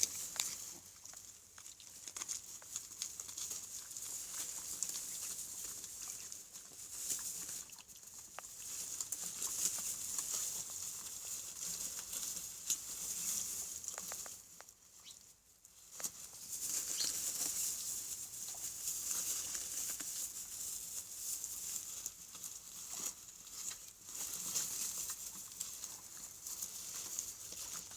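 Mini piglets running about, their feet pattering and scuffling, over a steady high-pitched hiss. The activity drops off briefly about halfway through.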